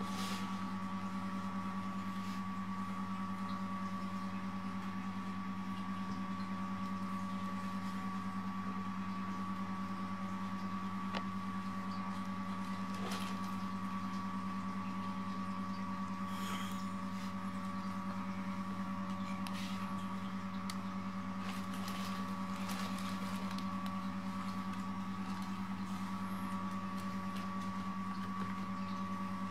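Steady low electrical hum with a thin high whine above it, unchanging throughout, with a few soft taps now and then.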